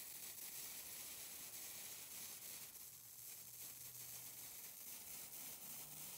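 Faint steady hiss of compressed air blowing out through a pop-up sprinkler head during a winterizing blowout, spraying a fine mist: the sign that the line is nearly cleared of water.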